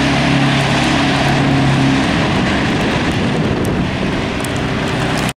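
Semi truck's engine droning as it passes close by on a snow-covered highway, over a steady wash of tyre and traffic noise. The engine drone fades after about two seconds, leaving the steady road noise.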